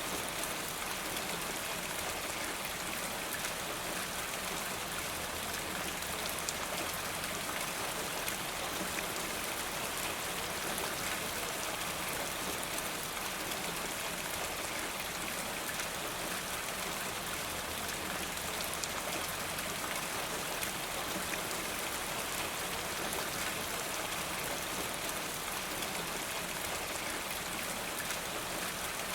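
Steady rain with drops pattering off a rain gutter: an even hiss dotted with many small drop ticks, unchanging throughout.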